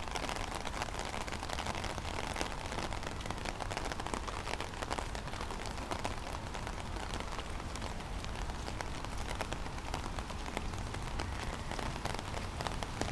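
Steady rain falling, with many small ticks of single drops striking close by.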